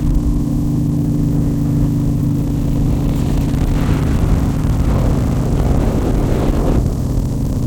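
Motorcycle engine running at a steady speed while riding, with a heavy low rumble underneath.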